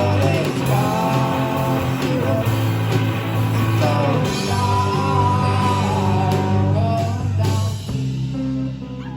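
A rock band playing a song with a lead singer, the vocal line bending up and down over the band. About eight seconds in, the full band drops away and the music turns quieter.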